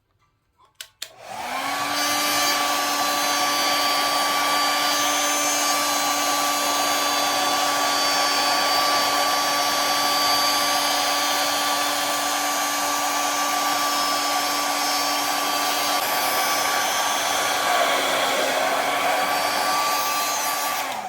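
Handheld hot-air blower switched on with a click about a second in and running steadily with a fan whine, its pitch dipping slightly near the end before it is switched off. It is heating the phone's glued back cover to soften the adhesive so the cover can be removed.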